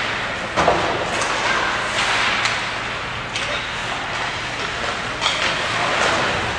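Ice hockey play on a rink: a steady scraping hiss of skates on the ice, broken by a few sharp stick and puck hits.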